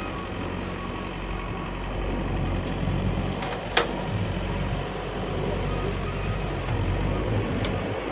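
Diesel engine of a digging machine running steadily, with one sharp click a little under four seconds in.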